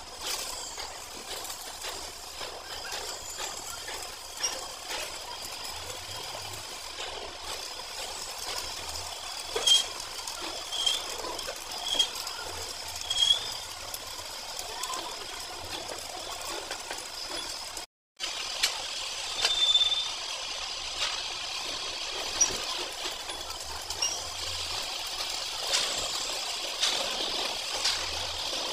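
Stick arc welding: a coated electrode crackling and sizzling steadily as a repair weld is laid onto a steel chain roller. The sound breaks off briefly about two-thirds of the way through and then resumes.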